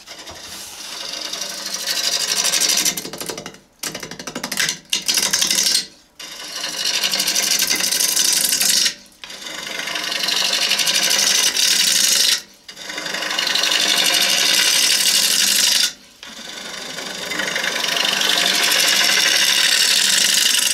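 Swept-back bowl gouge cutting into a wooden bowl blank spinning on an electric lathe: a hissing cut in about six passes, each swelling as the tool bites deeper and stopping suddenly as it lifts off. These cuts even out the bottom of the bowl.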